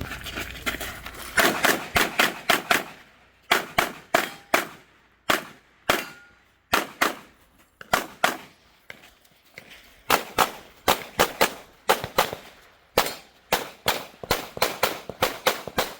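Grayguns-tuned Sig Sauer P320 pistol with an SXG steel grip module fired in rapid strings during a timed competition stage. Quick pairs and bursts of shots come in clusters, with brief pauses between them, starting about a second and a half in.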